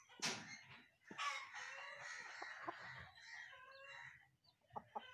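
Rooster crowing: one long drawn-out call starting about a second in and lasting about three seconds, after a short sharp burst of sound right at the start.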